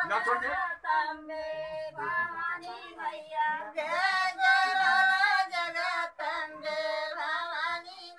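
A woman's voice singing a devotional song during a puja, in phrases of a second or two with long, wavering held notes and no instruments.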